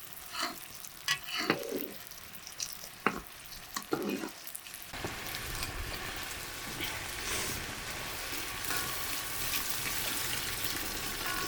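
A few short knocks and scrapes, then from about five seconds in a steady sizzle of food frying in a hot pot.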